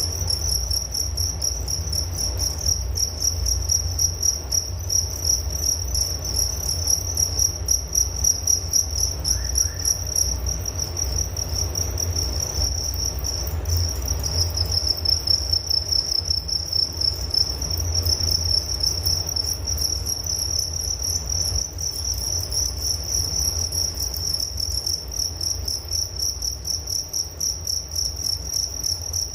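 Crickets chirping in a steady, high-pitched, fast-pulsing trill that does not let up, over a faint low rumble.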